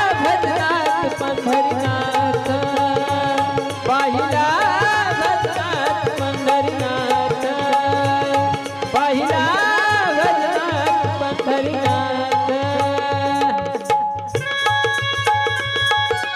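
Instrumental interlude of a devotional abhang: a dholak drums a steady rhythm under an electronic keyboard melody with wavy, sliding ornaments. Near the end the melody changes to held, steady notes.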